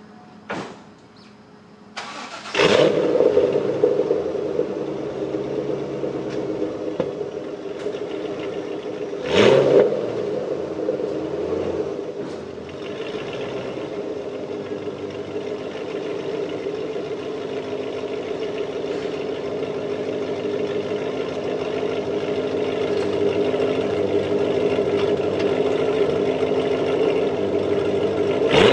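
C5 Corvette's LS1 V8, breathing through long-tube headers, a high-flow catted X-pipe and a B&B axle-back exhaust, starting up about two and a half seconds in with a loud flare, then idling. It gives one short rev about nine seconds in, then idles on, growing louder as the car backs out of the garage toward the listener.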